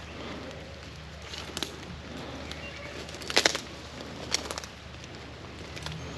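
A few scattered sharp snaps and clicks over a low steady hum, the loudest a quick double snap about halfway through.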